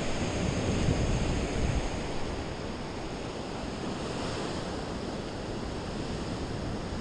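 Ocean surf washing up on the beach, with wind rumbling on the microphone, strongest in the first two seconds before settling into a steady hiss.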